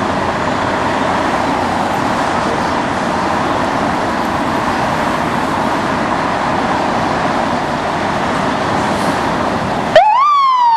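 Fire apparatus engines running loudly in the firehouse bays. Near the end a siren comes on, sweeping sharply up and then falling slowly away.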